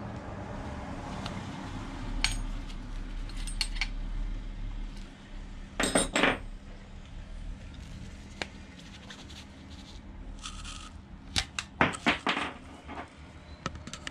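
Metal tools and small parts clinking and scraping during hand work on a motorcycle engine: scattered sharp clicks, with louder clusters of knocks about six seconds in and again near twelve seconds, and a short scrape just after ten seconds.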